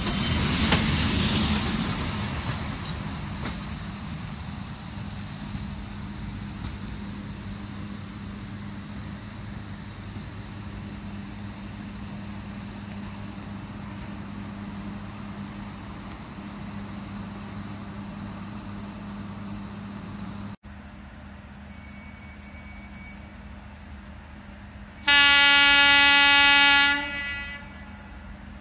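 Train running with a steady low drone, loudest in the first couple of seconds. Near the end a train horn sounds one long steady blast of about two seconds, the loudest sound here.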